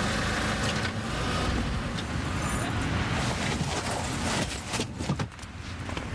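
Motor vehicle noise: cars running at speed, a steady loud rush of engine and road sound that dips briefly about five seconds in.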